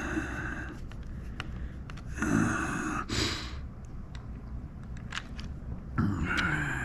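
A man breathing hard and sighing several times, one ending in a low falling grunt near the end, with small clicks from the joystick's plastic parts being handled in between.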